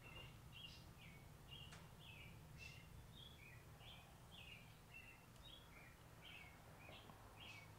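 Faint bird chirping: a steady run of short, high chirps, about three a second, over a low steady hum.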